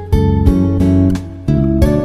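Background music: a strummed acoustic guitar playing chords in a steady rhythm, changing chord about one and a half seconds in.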